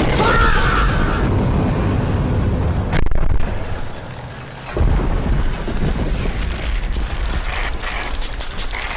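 Loud explosion-like booms and rumbling, with a sharp crack about three seconds in and another heavy boom a couple of seconds later.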